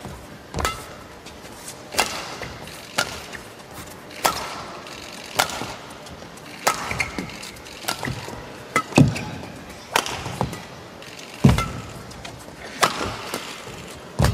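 Badminton rackets striking a shuttlecock back and forth in a long rally, sharp hits about one a second, with a few heavier strikes.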